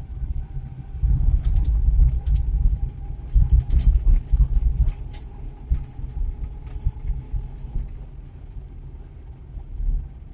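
Engine and road rumble inside the cab of an old Suzuki Carry 1.0 pickup on the move, with a faint steady whine. From about one to seven seconds in there is a run of light rattling clicks and jangles.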